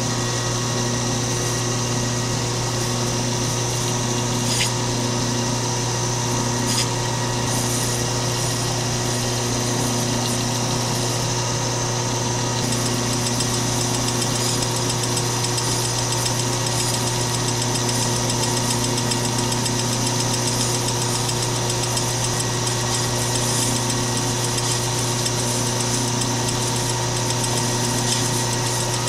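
Atlas 618 six-inch lathe running steadily, its motor and drive giving an even hum with a higher whine, while a grooving tool is plunged into the spinning piston to cut an O-ring groove.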